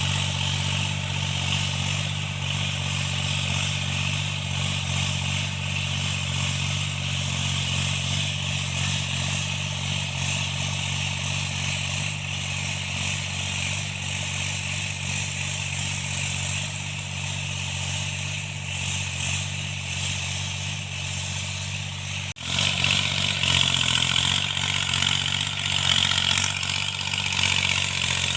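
Tractor engine running steadily during cultivation, its engine knock repaired. About 22 seconds in the sound breaks off for an instant and comes back a little louder.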